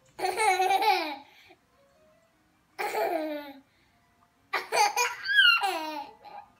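A young child's voice in three bursts of laughing, babbling sounds; the last rises into a high squeal near the end.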